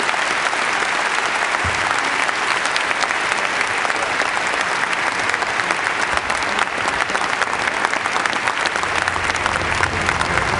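A large theatre audience applauding: many hands clapping steadily and densely.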